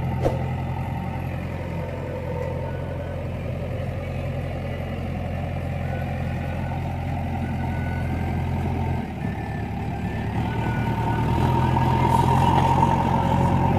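JCB 3DX backhoe loader's diesel engine running steadily, dipping briefly about nine seconds in, then picking up revs and getting louder near the end.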